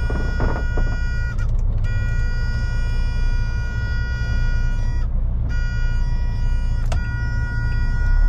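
MAN lorry's diesel engine running at a steady pace, a constant low drone with a thin high whine above it that drops out briefly twice. A sharp click comes near the end.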